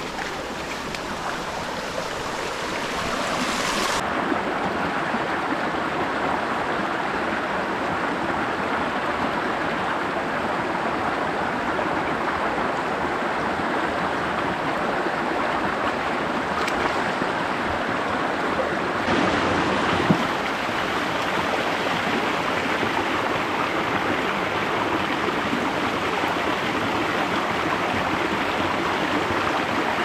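Rushing water of a rocky river stream, a steady rush that grows a little louder over the first few seconds.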